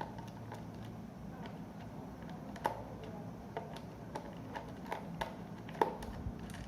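Small irregular clicks and ticks of a precision screwdriver turning a Phillips screw out of a digital multimeter's back case, two of them louder than the rest, a little before halfway and near the end.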